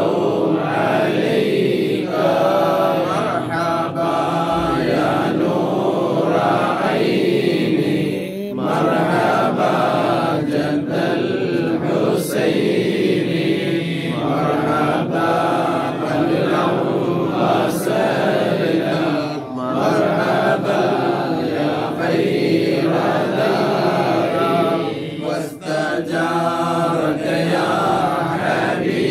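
Men chanting mawlid verses, devotional poetry in praise of the Prophet, as a steady melodic chant that runs on with only brief breaths, led by a man reading from a booklet.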